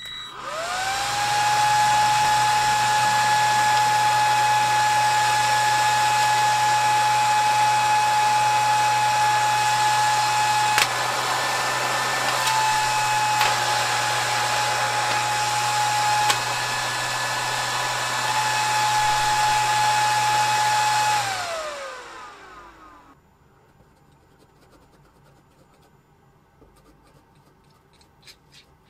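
Electric radiator cooling fan on a 1/5-scale RC car spinning up within about a second to a steady high whine and running. About 21 seconds in it is switched off and the whine falls in pitch as it winds down.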